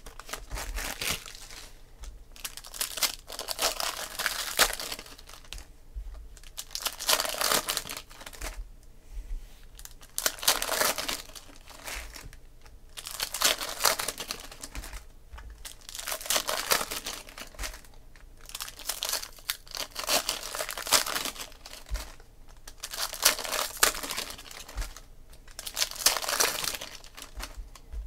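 Foil wrappers of Panini Prizm football card packs being torn open and crinkled by hand, in repeated bursts every two to three seconds.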